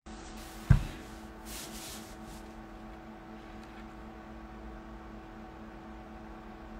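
A handheld phone's microphone knocked once by handling, a sharp low thump about a second in, followed by a few soft rustles, over a steady hum and hiss of room noise.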